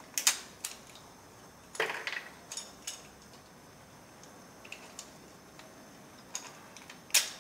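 A hand-held olive pitter clicking and cracking as it punches holes in dried Persian limes, in a few scattered sharp snaps. The loudest come just after the start and near the end, with a short cluster about two seconds in.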